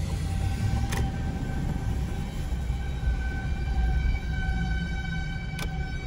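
Federal Signal 2001-130 tornado warning siren sounding a steady single-pitch tone in the distance, swelling louder about halfway through, heard from inside a moving car over low road rumble.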